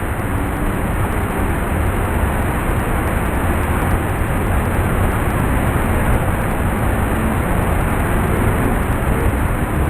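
Waterfall: falling water rushing steadily and loudly, with no let-up.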